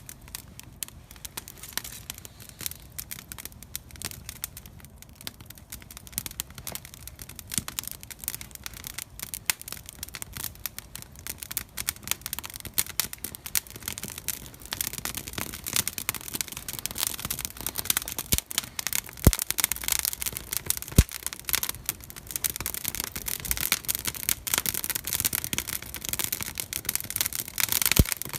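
Wood fire crackling: dense, irregular small snaps that grow busier about halfway through, with a couple of sharper single pops later on.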